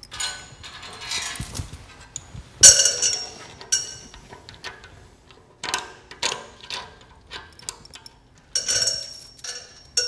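Metal clicks, clanks and clinks, several of them sharp with a high ringing, as a folding knife is set into the metal clamp of a lock-strength test rig and its hanging chain is handled. The loudest clank comes about three seconds in, with more near the middle and near the end.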